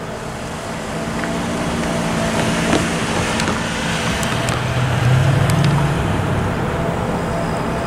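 A pickup truck drives across the level crossing and passes close by. Its engine and tyres grow louder and are loudest about five seconds in.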